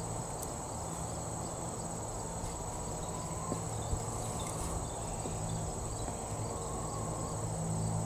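Crickets chirring steadily in a high, unbroken trill, over a low steady hum. A few faint soft knocks come about halfway through as a garden fork goes into the soil.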